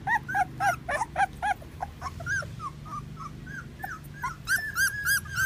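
Four-week-old puppies whining, a quick run of short high-pitched cries, several a second, thinning out in the middle and picking up again near the end. They are crying for their mother, who is out of reach.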